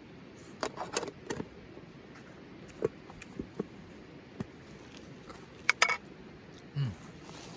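Light metallic clinks and knocks of camp cookware being handled: several sharp clicks about a second in, single knocks over the next few seconds, and a quick cluster of clinks near six seconds.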